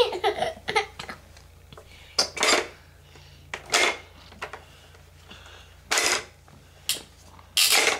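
A young child sucking and slurping noisily on the spout of a plastic sippy cup: about half a dozen short, hissy slurps at irregular intervals.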